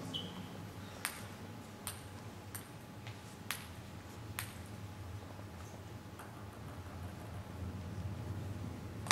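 Table tennis ball bounced by hand between points: about five sharp clicks, roughly a second apart, in the first half. A brief high squeak sounds at the very start.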